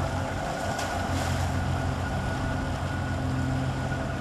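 Engine of a canal tour boat running steadily as the boat moves along the canal: a constant low hum with a thin steady whine above it.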